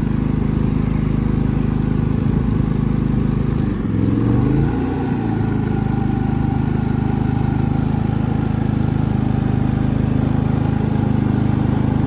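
Predator 3000 Super Quiet inverter generator running with a steady low hum. About four seconds in, its engine note dips and rises briefly as the camper's load is plugged in, then settles back to a steady run.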